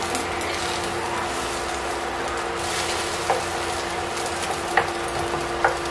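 Egg sizzling in oil in a nonstick frying pan as a wooden spatula stirs and scrapes it, with a few light clicks of the spatula against the pan in the second half.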